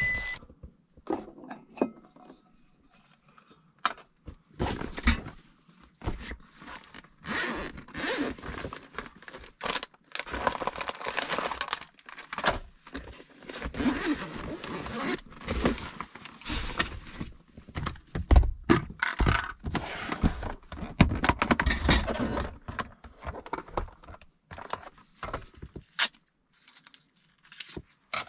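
Camping gear being handled and rearranged: rustling of fabric bags and packaging, light metal clinks, and scrapes and knocks of plastic boxes being moved, with a few heavier thumps about two-thirds of the way in.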